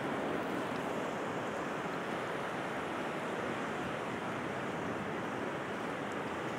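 Steady rushing noise of shallow seawater lapping around pier pilings, with some wind on the microphone.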